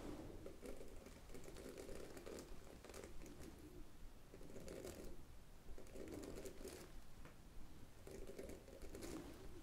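Hairbrush bristles stroked close to the microphone in slow repeated brushing strokes, a soft scratchy rustle with fine crackles, about one stroke a second.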